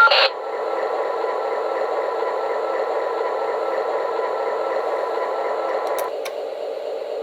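Steady radio static hiss with a faint hum, played by a QSI Maxx Traxx model-train sound unit through its small speaker, filling the gap between canned radio messages. Two clicks come about six seconds in, and the hiss then drops a little.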